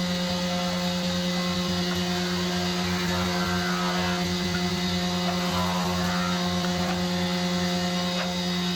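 A machine running with a steady, even hum.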